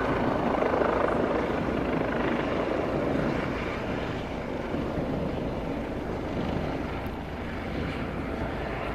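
Helicopter flying overhead, its rotor noise a loud, steady drone that eases off a little in the second half.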